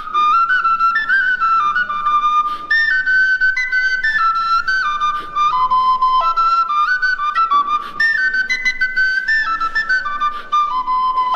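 A small wooden Armenian end-blown flute playing a fast, ornamented folk melody, with quick trills and runs between held high notes.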